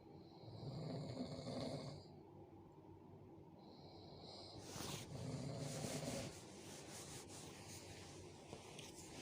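A sleeping person snoring heavily: two long snores about four seconds apart, each with a breathy hiss, and a third beginning at the very end.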